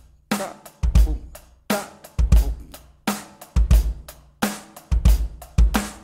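Electronic drum kit playing a steady pop groove: bass drum in quick double strokes, with snare backbeats and hi-hat on top. The paired low kicks come round about every second and a half.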